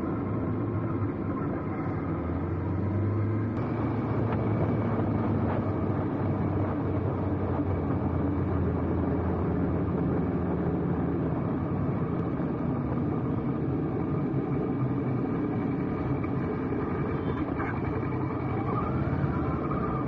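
A road vehicle driving steadily, its engine and tyre noise heard from on board as an even drone.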